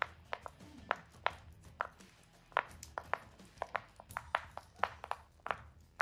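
Mint-green silicone pop-it fidget toy having its bubbles pressed through one after another: a string of sharp pops, about three a second and unevenly spaced.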